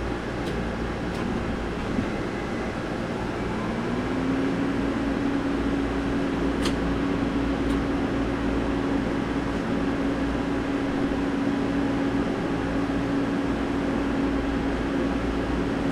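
Engine-room machinery running steadily, with a hum that rises slightly in pitch about four seconds in and then holds steady; a few faint ticks.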